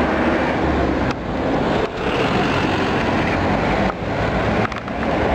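Wind rushing over the microphone with road and engine rumble while riding a motor scooter along a street: a loud, steady noise with a constant low rumble, broken by several very brief dips.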